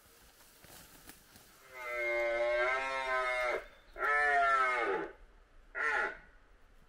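Red deer stag roaring during the rut: two long roars followed by a short one, the second roar dropping in pitch at its end.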